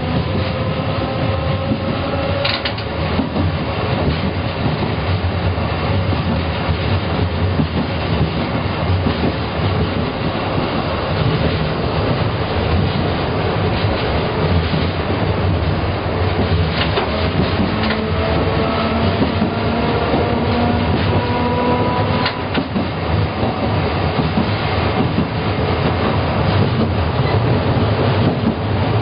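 Sapporo City Tram M100-class streetcar running, heard from inside the car: the hum and gear whine of its nose-suspended (tsurikake) traction motors rise in pitch as it picks up speed, near the start and again about two-thirds of the way through. A few sharp clicks from the wheels come over it.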